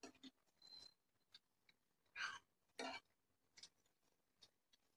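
Faint eating sounds near silence: fingers working rice on steel plates, with a few soft clicks and two short soft noises about two and three seconds in.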